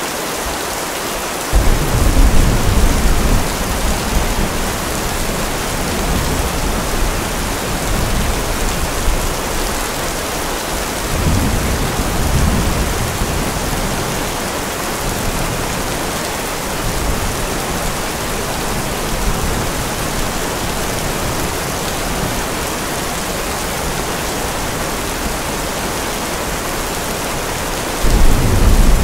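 Steady rain with rolling thunder. A deep rumble starts suddenly about a second and a half in, another comes around eleven to thirteen seconds, and a third loud rumble begins near the end.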